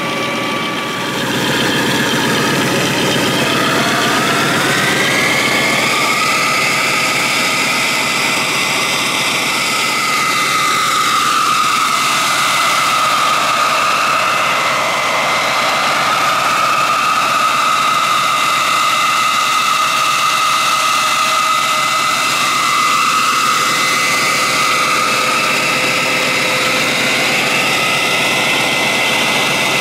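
High-speed air turbine of a model LUF 120 fire-fighting tank running at full speed, a high whine over the hiss of the water mist it blows out. The whine rises in pitch a few seconds in, then holds steady.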